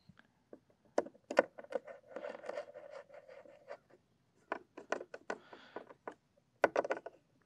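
Hand screwdriver turning a mounting screw through a half-inch HDPE plate into a threaded insert in a plastic kayak hull: irregular clicks and scraping, with a longer scraping stretch about two seconds in and a quick run of clicks near the end.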